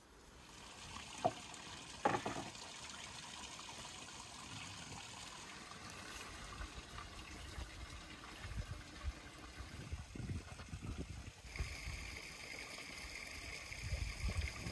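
Two sharp knocks of a knife on a metal tray as chopped green peppers are scraped off the blade, over a soft steady trickling hiss.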